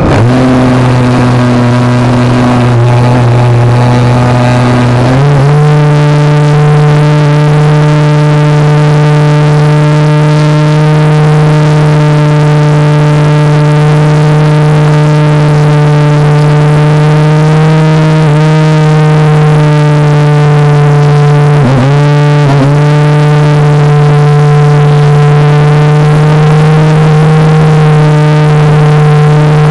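RC airplane's motor and propeller running hard, heard loud and close from the phone taped to the plane: a steady pitched drone that steps up in pitch about five seconds in and dips briefly twice later on.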